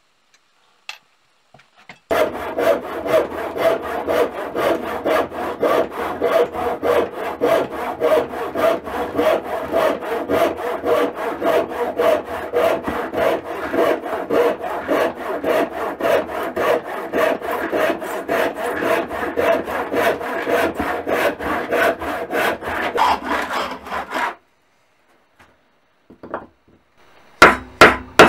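Handsaw cutting through a block of ash in long, even back-and-forth strokes, about two to three a second, for some twenty seconds before stopping. Near the end, a few sharp knocks of a blade being struck into the wood.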